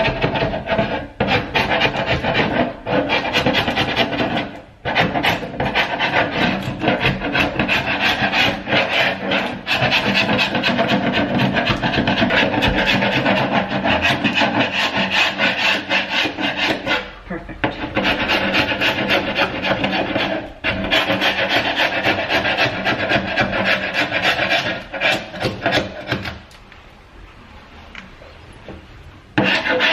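Sharp wood chisel scraping old paint off a hardwood door panel in rapid short strokes, with a few brief breaks and a longer pause near the end. The chisel is starting to dull and no longer catches as well.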